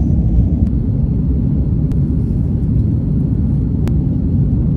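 Airliner cabin noise: a steady low rumble of the jet engines and airflow, with about three faint clicks.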